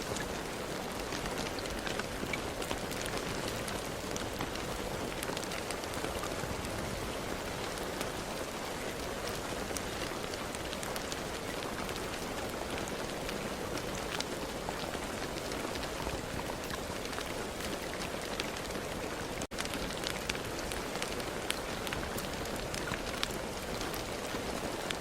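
Steady rain falling: an even hiss with many separate drop hits pattering through it. The sound cuts out for an instant a little over two-thirds of the way through.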